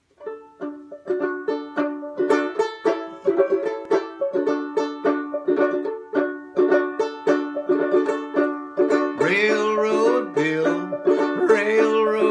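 Four-string open-back banjo picked in a steady rhythm as the instrumental introduction to a folk song. About nine seconds in, a man's low wordless voice joins over the playing.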